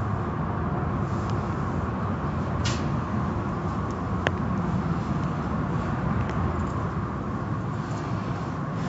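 Automatic car wash tunnel running: a steady rumble and hiss of the wash machinery and spraying water, with a couple of brief clicks midway.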